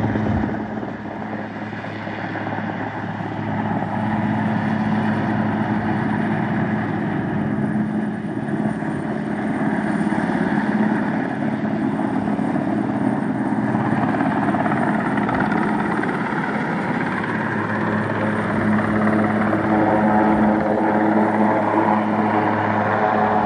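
A large helicopter hovering low, its rotors and turbines making a steady, loud drone that grows louder near the end as it comes closer.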